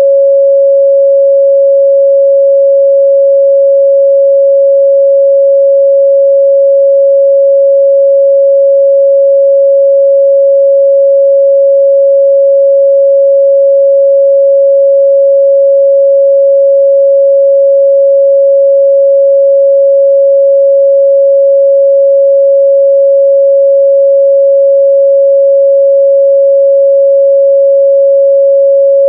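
A steady, loud pure sine-wave test tone at 553 Hz, one unbroken note with no overtones.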